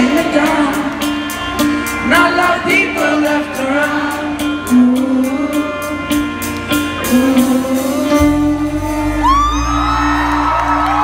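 Live rock band playing, with a male lead singer singing over a steady cymbal beat, about four ticks a second, and held guitar notes, recorded from the crowd. A low bass comes in about eight seconds in.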